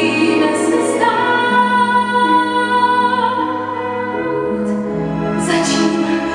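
A woman singing a musical-theatre song in Czech, holding long notes, over an instrumental accompaniment.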